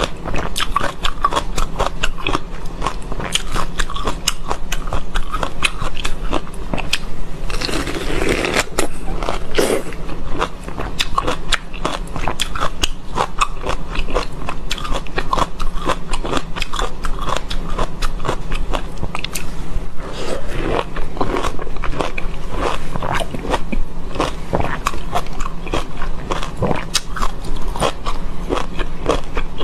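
Close-miked biting and chewing of a perfume lemon: a dense run of crisp, wet crunches, with heavier bites about eight seconds in and again near twenty seconds.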